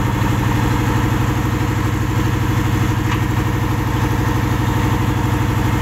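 Large engine of a sand-dredging barge running steadily at working speed with a fast even pulse, driving the suction pump as the barge draws up sand.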